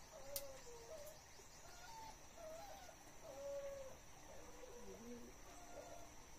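Faint bird calls, short wavering notes repeating, over a steady thin high insect drone; a sharp click about half a second in.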